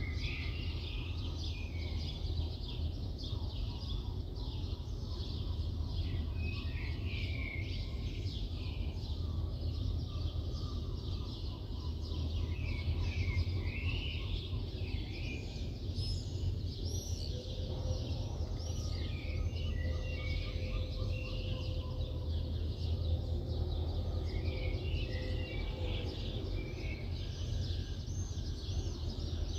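Many small birds chirping in quick, overlapping calls throughout, over a steady low rumble of distant city traffic.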